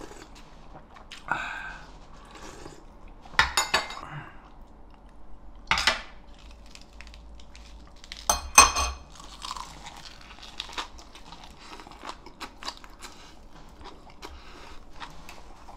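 Someone chewing and crunching crisp raw spring cabbage (bomdong) leaf wraps. A few sharp clinks of metal utensils against dishes come through, the loudest about eight and a half seconds in.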